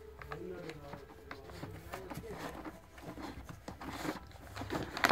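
Jack Russell terrier rummaging in an open cardboard delivery box: scattered light rustles, scratches and taps of the packages and cardboard as it noses the items, with a louder knock right at the end.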